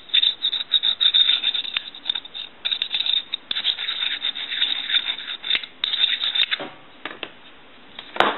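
Quick, irregular scraping strokes as the contact ends for the transmitter of a Western Electric 500 telephone handset are roughed up by hand so they make a good electrical connection. The scraping stops about three-quarters of the way in, and there is a sharp click near the end.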